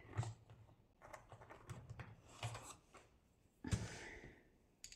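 Faint clicks and rustles of wooden coloured pencils being handled on a desk, with a slightly louder knock near the end as a pencil is picked up.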